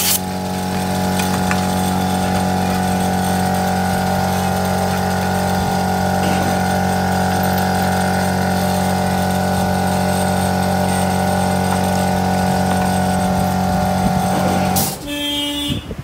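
A steady electrical hum from a mains-powered machine, which stops about fifteen seconds in and is followed by a few brief tones.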